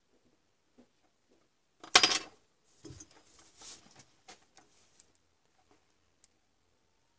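One sharp metallic clank with a brief ring about two seconds in, followed by a few seconds of smaller metal clinks and rattles: small metal tools set down and a helping-hands clamp stand being handled and repositioned.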